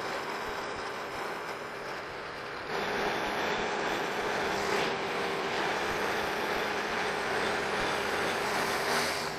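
Milling machine running a 7/16-inch end mill through a metal plate, a steady cutting noise over a steady hum. It grows louder about three seconds in and stays there.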